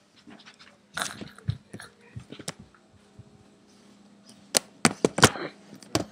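Irregular sharp knocks and clicks of things being handled, a few spaced out about a second in and a quick run of four or five near the end, over a faint steady hum.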